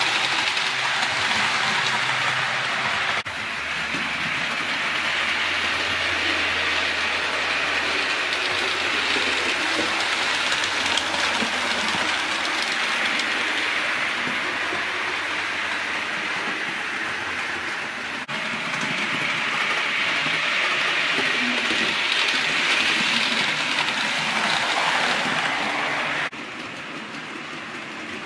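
Train running on track: a steady rushing rumble of wheels with a clickety-clack. The sound shifts abruptly about three seconds in and again around eighteen seconds, then drops quieter near the end.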